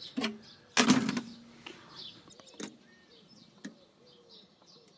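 Metal pizza-oven door handled with a sudden clank and scrape about a second in, followed by a few light clicks. Birds call and chirp repeatedly in the background.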